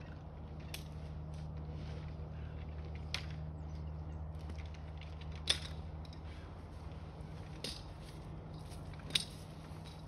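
A steady low hum runs throughout, with about five short, sharp clicks or snaps spread through it.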